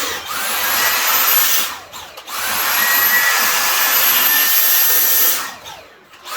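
Dyson cordless vacuum motor whining up to speed and then cutting out, three times in a row: a short run, a longer one of about three seconds, and a third starting near the end. This repeated cutting out is the fault being checked, which the owner puts down to a clog or possibly a battery on the way out.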